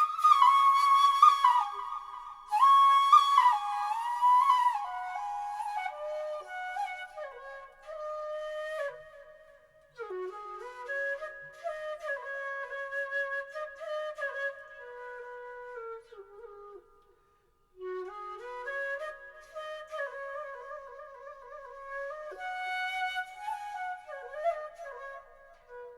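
Background music: a solo flute melody in stepwise phrases, pausing briefly twice.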